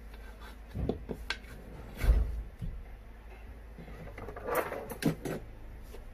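Hands setting bent plant-support stakes into a terracotta pot of geraniums: scattered light knocks and clicks, one heavier low thump about two seconds in, and a cluster of clicks and rustling near the end.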